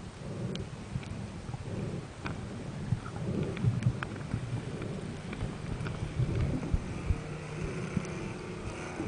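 Underwater sound picked up through a camera housing: muffled low rumbles and scattered sharp clicks. About seven seconds in, a steady low engine hum from a passing boat comes in.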